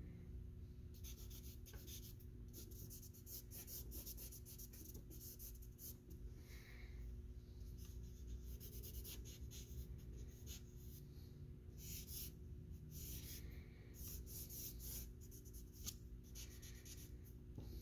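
Vine charcoal stroking across 80 lb drawing paper: faint, short, irregular scratchy strokes, some in quick runs, over a steady low electrical hum.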